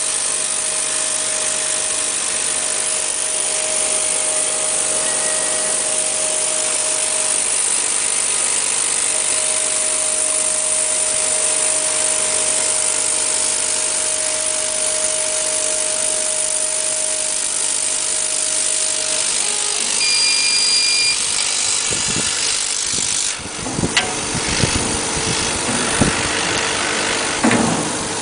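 A CO2 laser cutter runs while cutting thick clear acrylic, with a steady hiss and a thin steady whine. About 20 s in a short electronic beep sounds, and a few seconds later the hiss cuts off as the job ends. Then come a few sharp clicks and knocks of cut acrylic pieces being handled.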